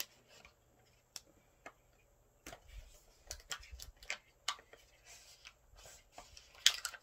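Packaging being worked open by hand to free a lip cream: scattered sharp clicks and crinkles, sparse at first and coming thicker from about two and a half seconds in.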